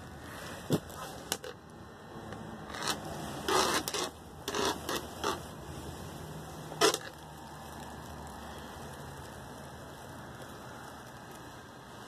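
Handling noise from a handheld camera: scattered, irregular clicks and rubs, the sharpest about seven seconds in, over a steady low background hum.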